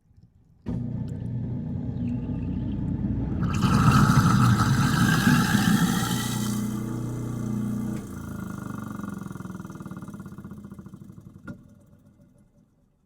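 Sink garbage disposal switched on with a sudden start, its motor running with a steady hum; for about three seconds a loud rushing hiss joins in over the motor. About eight seconds in it is switched off and winds down, fading out, with a sharp click near the end.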